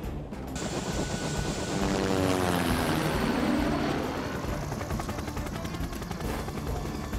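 Helicopter rotor chopping steadily, with an engine note that falls in pitch as it flies past about two to three seconds in.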